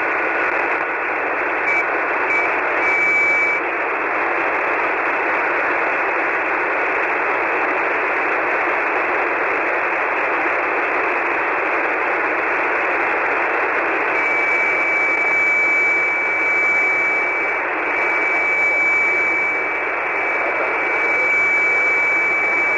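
Single-sideband shortwave receiver on the 40-metre band passing steady static hiss, held to the narrow voice passband with no bass or treble. A few short beeps come near the start. About two-thirds of the way through, a steady high whistle from an interfering carrier comes in and holds.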